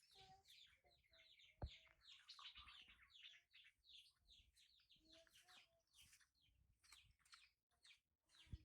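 Dense, overlapping high-pitched chirps and cheeps from small animals or birds, with a few lower cluck-like calls; a sharp thump about a second and a half in and another near the end.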